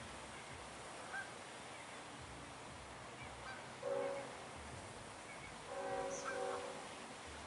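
Goose honking: one short honk about four seconds in, then a longer run of honks near the end, over a faint steady outdoor background.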